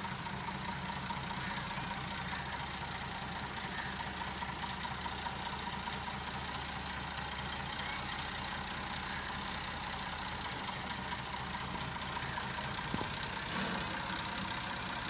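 Massey Ferguson 260 Turbo tractor's turbocharged diesel engine running steadily at low revs while the tractor drives slowly.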